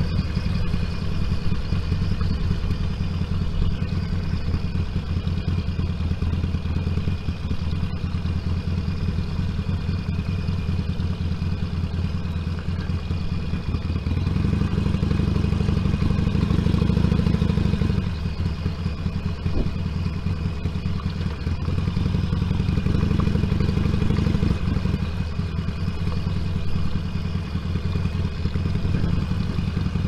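Motorcycle engine running at low speed, picked up by an intercom microphone inside the rider's crash helmet. The engine gets louder twice, about halfway through and again a little later, as the throttle is opened, then settles back.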